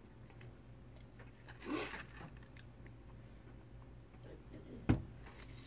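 Hands handling a foil-lined foam takeout box while hot sauce is shaken onto fried fish: a rustling swish a little under two seconds in, then a sharp knock and a short rustle about five seconds in.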